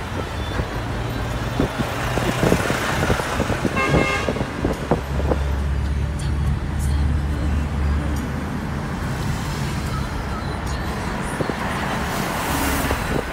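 Traffic and engine noise heard from inside a moving car driving alongside heavy trucks, with one short vehicle horn toot about four seconds in. A deeper engine drone swells from about five to eight seconds in.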